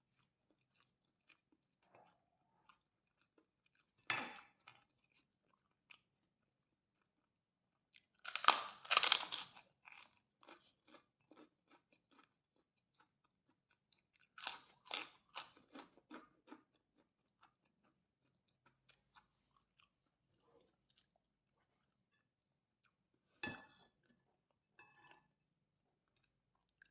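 A person chewing and crunching a mouthful of nasi goreng (fried rice), in scattered short bursts with quiet gaps between. The longest bursts come about 8 to 10 seconds in and again around 15 seconds.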